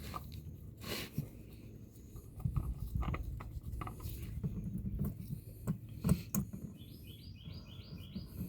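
Scattered clicks and knocks of metal parts and tools being handled while the old oil filter is taken off, over a low rumble, with a quick run of short chirps near the end.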